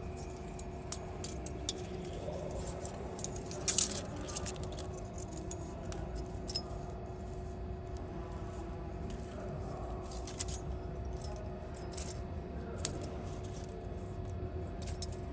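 Thin steel feeler-gauge blades clinking and rattling against one another and the extruder's metal as they are fanned and pushed in by hand to measure the gap. There are scattered light clinks throughout, a cluster of sharper ones about four seconds in, and a faint steady hum underneath.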